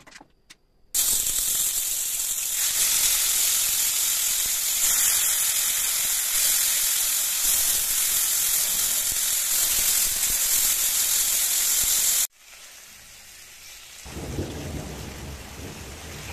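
Marinated mutton pieces sizzling loudly and steadily in hot oil in a stainless steel frying pan. The sizzle cuts off abruptly about twelve seconds in, and a quieter sizzle follows with a wooden spatula stirring the meat near the end.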